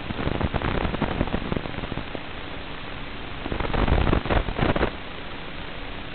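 Hiss from an analog FPV video receiver's audio channel. It rises to crackling static twice, first for about two seconds at the start and then louder around the middle, as the drone's video signal breaks up.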